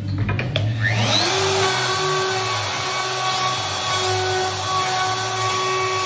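Festool power tool switched on with a few clicks about half a second in, its motor spinning up in a rising whine and then running steadily, held in a lock-fitting jig on a door edge to cut the latch recess.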